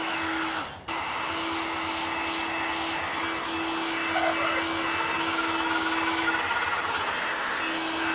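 Electric heat gun running steadily, its fan blowing hot air with a steady whir and motor hum as it heats grey plastic scooter body panels. The sound dips briefly about a second in.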